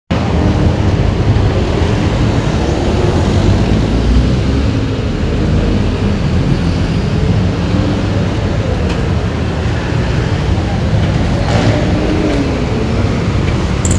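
Steady low rumble of a running vehicle engine with road noise, and faint voices in the background.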